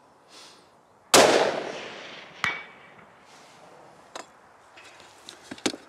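A Sako S20 rifle fires about a second in, a sudden loud crack that echoes away over a second or so. About a second and a half later the steel gong target rings back with a short metallic clang, the sign of a hit. A few light clicks follow near the end.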